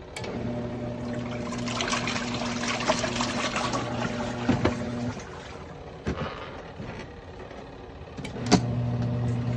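Portable twin tub washing machine's wash motor running with water sloshing in the tub. It stops about five seconds in and starts again with a click near the end, in the wash tub's run-and-pause cycle.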